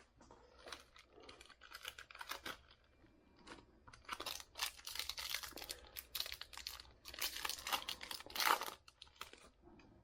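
Trading-card pack wrappers being torn open and crinkled, in irregular rustling bursts while the cards are handled.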